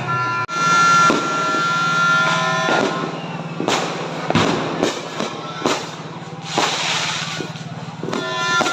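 New Year's fireworks and firecrackers going off, a string of sharp bangs at irregular intervals, about one every second or so.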